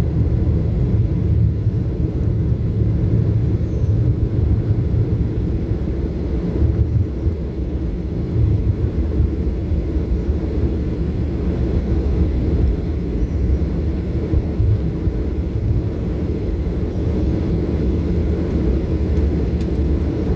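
Steady low rumble of a Southwest Airlines Boeing 737's jet engines and airflow, heard inside the cabin during the climb after takeoff.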